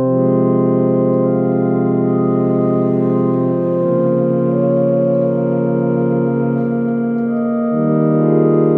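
Hammond organ playing a slow hymn in sustained chords, each held about four seconds before moving to the next.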